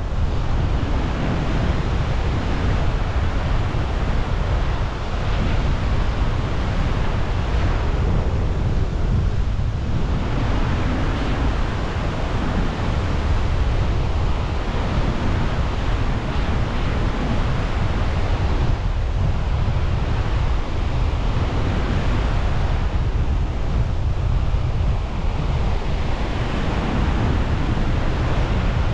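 Strong wind buffeting a GoPro's microphone in paraglider flight: a loud, steady rush of noise, heaviest at the low end.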